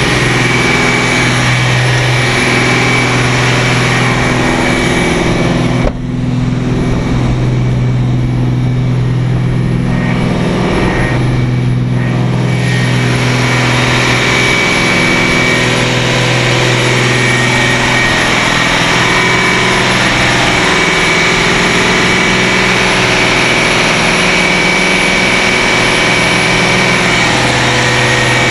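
Cummins QSC 600 hp marine diesel engine, an inline six, running steadily under load while the boat is under way, heard up close through the open engine hatch. It is a loud, even drone with a faint high whine above it.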